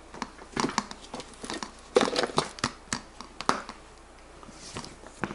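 Leather camera case being handled: a run of short clicks and rustles as the top flap is closed and its snap fastener pressed, growing quieter after about three and a half seconds, with one more sharp click near the end.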